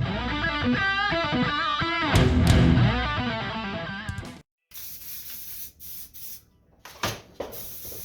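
Electric guitar music, cut off sharply about halfway through, followed by quieter, faint noise with a single sharp knock near the end.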